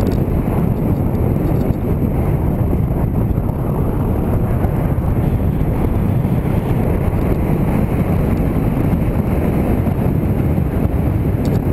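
Motorcycle riding at a steady speed: a steady rush of wind over the microphone mixed with engine and road noise.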